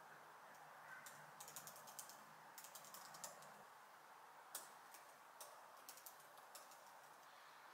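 Faint typing on a laptop keyboard: quick irregular runs of key clicks, busiest in the first half and thinning out later, over low room noise.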